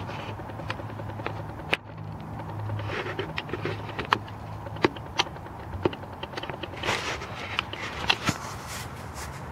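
Handheld camera handling noise: scattered sharp clicks and light knocks over a low steady hum that weakens about two-thirds of the way in.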